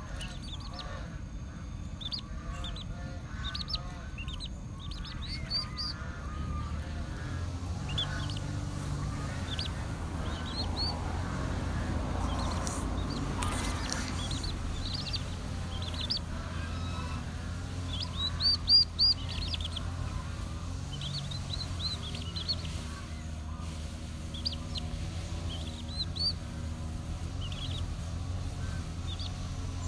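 Chicks peeping in many short, high chirps while they peck at a handful of cooked rice, with a few lower honking calls from geese in the first few seconds.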